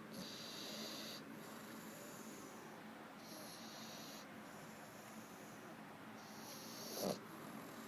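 Three-month-old baby snoring softly in her sleep, a faint breathy snore about every three seconds. One breath near the end is louder.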